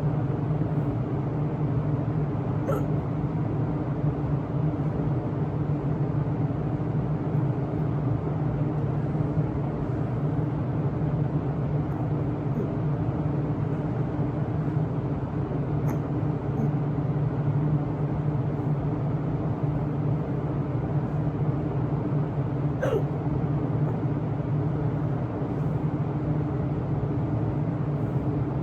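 A person hiccupping a few times, each hiccup short and sharp and several seconds apart, over the steady hum of an electric fan.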